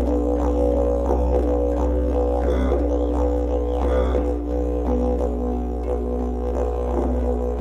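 Didgeridoo drone played live with a regular pulsing rhythm, under held higher notes that shift in pitch about five seconds in.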